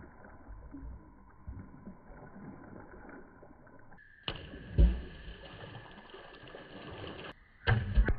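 Slowed-down splashes of objects thrown into a swimming pool: a low, muffled sloshing, then a deep impact whose pitch falls just before five seconds in, and another heavy splash near the end.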